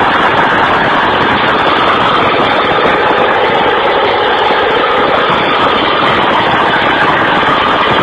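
Engine of heavy machinery running steadily, a loud even rumble with no distinct knocks or changes.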